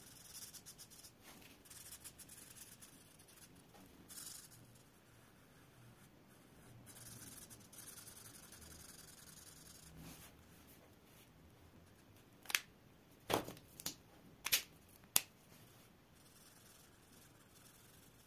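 Marker tip rubbing and scratching across paper in quick colouring strokes, then five sharp clicks a little past the middle as markers are swapped, their caps pulled off and snapped on.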